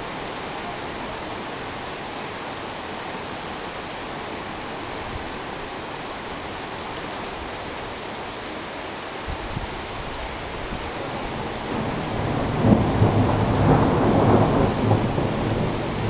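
Heavy rain pouring down steadily. About two thirds of the way in, a deep roll of thunder builds, swells to the loudest part near the end, then starts to fade.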